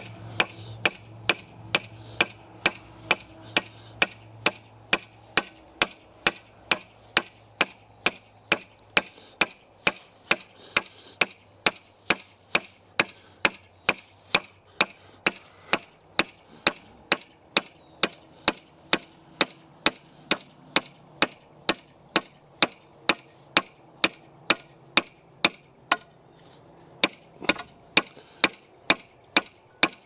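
A hand hammer strikes a steel rebar pin again and again, driving it into the ground by hand. The blows are steady, about two a second, each with a metallic ring. They stop briefly near the end, then resume.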